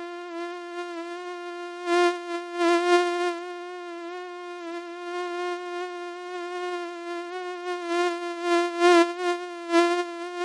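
Mosquito buzzing: a steady, high whine that swells louder and fades back several times, as if the insect is flying close past.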